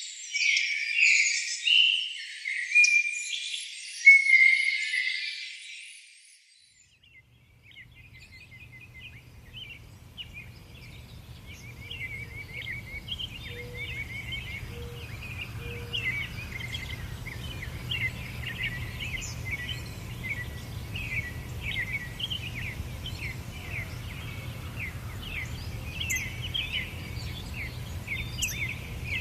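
Forest birds calling loudly, fading out about six seconds in. After a brief hush, a softer dense chorus of quick chirps starts and carries on over a low steady rumble.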